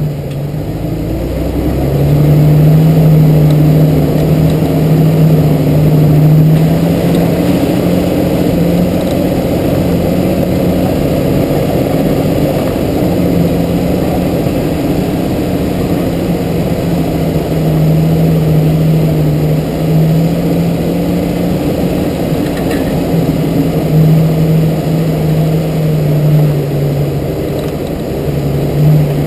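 Jeep TJ trail rig's engine running as it drives slowly down a dirt trail, a steady drone that swells and eases with the throttle over low tyre and drivetrain rumble.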